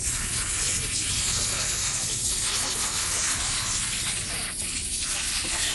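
A steady rushing hiss aboard a passenger ferry, with a low engine hum underneath.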